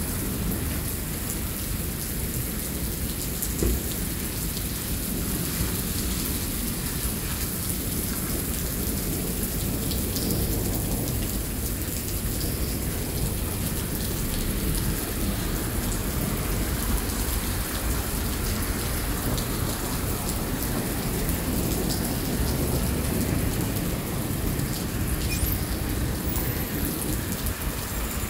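Heavy rain pouring onto a paved parking lot: a steady, dense hiss of rain with a low rumble underneath.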